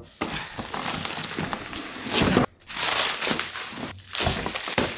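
Bubble wrap and plastic packaging being pulled and torn by hand, crinkling and crackling in three stretches with short pauses between them.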